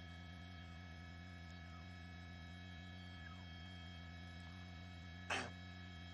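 A steady, faint electrical hum made of several steady tones, with one short burst of noise about five seconds in.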